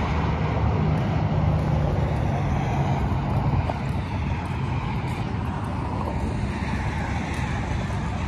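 Steady road traffic noise, cars and trucks running along a highway.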